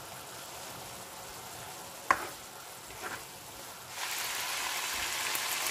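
Chicken hearts and gizzards sizzling on high heat in a nonstick pan, simmering down in their own released juices. A spatula knocks sharply against the pan about two seconds in, with a lighter knock a second later. The sizzle gets louder about four seconds in.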